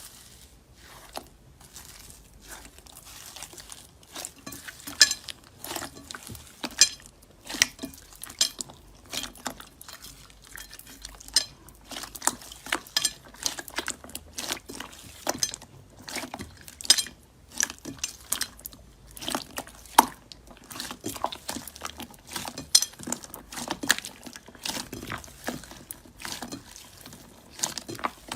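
Slime being squished and worked, making irregular sharp clicks and wet pops, a few every second.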